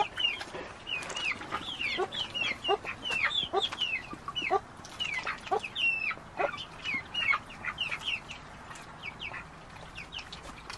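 A flock of chickens chirping and clucking: many short, high chirps that fall in pitch, several a second, with some lower clucks mixed in, thinning out over the last few seconds.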